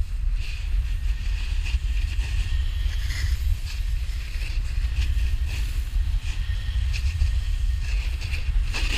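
Wind buffeting an action camera's microphone as a steady low rumble, over the hiss and scrape of a snowboard riding across snow.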